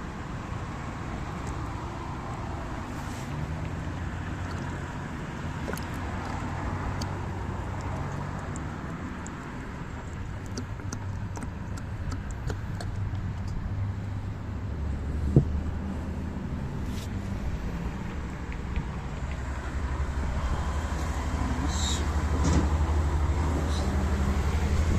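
Low, steady rumble of a motor vehicle engine running, growing louder in the second half, with a few small clicks and one sharp click partway through.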